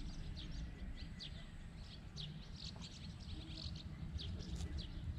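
Small birds chirping: many short, high chirps scattered through, over a low steady rumble.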